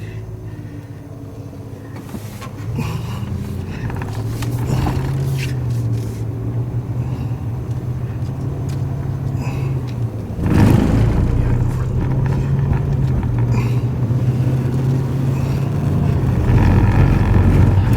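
Car engine and road noise heard from inside the cabin: a steady engine hum that grows a little louder about two and a half seconds in, then a sudden louder surge about ten and a half seconds in that holds.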